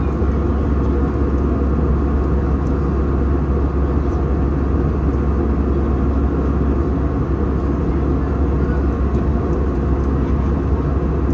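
Steady low roar of an airliner cabin in flight: engine and airflow noise, even and unbroken.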